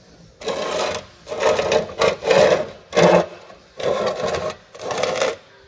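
The cut edge of a shortened steel Subaru oil pan scraped back and forth on sandpaper on a bench to flatten it: six rasping strokes with short pauses between them.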